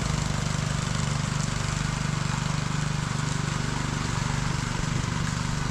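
Engine of a concrete power trowel (finishing machine) running steadily with a fast, even throb.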